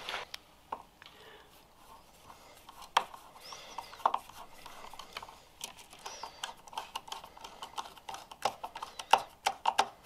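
Scattered light clicks and taps of cable terminals and hardware being handled at a 12V bus bar, with a quick run of clicks near the end.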